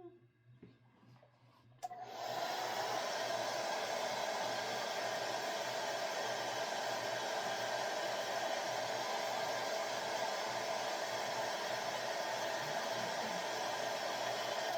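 Hand-held hair dryer switched on with a click about two seconds in, then blowing steadily until it cuts off at the end, drying the bonding glue on freshly laid weave tracks.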